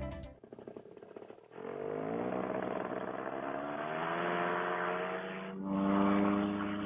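Fresh Breeze Monster paramotor engine starting up about a second and a half in, its pitch rising as it speeds up, then running steadily. It is louder again near the end.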